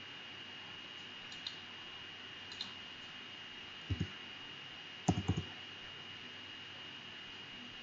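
Computer mouse clicks and keyboard key presses: a couple of light clicks, then a heavier double tap just before four seconds in and a quick cluster of taps a little after five seconds, as the Escape key cancels a selection. Underneath is a steady hiss with a faint high whine.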